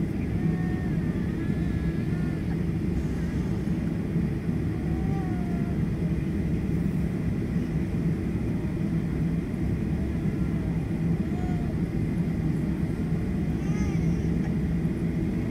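Steady low cabin rumble inside a Boeing 737-900 on the taxiway, its CFM56 engines at idle. The level holds even, with no spool-up for takeoff. Faint voices come and go.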